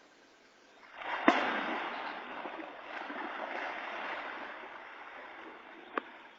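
A sudden heavy splash about a second in as a large animal bursts out of the river water at the bank, followed by several seconds of churning, sloshing water that slowly dies down. A single sharp knock comes near the end.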